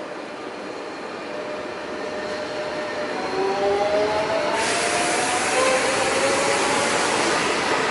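Renfe electric commuter train running along the platform past the listener, growing steadily louder, with a faint whining tone over the rumble. About four and a half seconds in a loud rushing hiss comes in suddenly as the cars pass close by.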